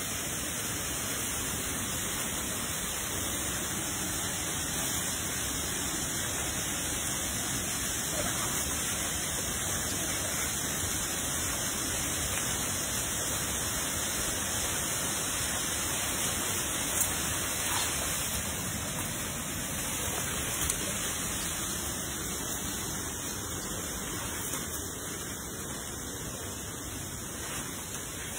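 A steady, even rushing noise, with a few faint clicks about two-thirds of the way in.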